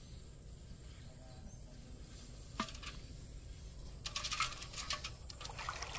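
Fish and prawns dropping and flapping in a water-filled pot as a china duari net trap is emptied: one sharp splash about halfway through, then a quick flurry of wet slaps and patters near the end.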